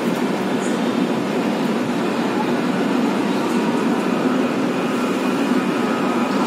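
Express passenger train running along the track, heard from inside the coach as a steady, even running noise.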